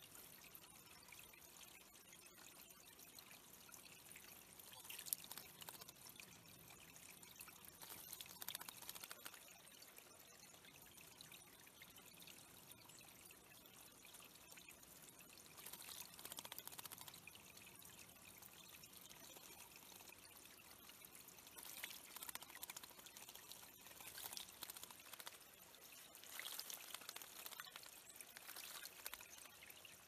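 Faint trickle of water running over stones into a shallow bird-pond pool, with several bursts of splashing from a hermit thrush bathing, fluttering its wings in the water, most often in the last several seconds.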